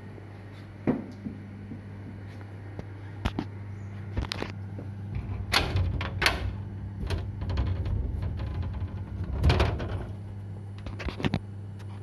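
A door being unlatched and opened onto a patio: a series of clicks and knocks, with louder rattling and scraping around the middle and again about ten seconds in. A steady low hum runs underneath.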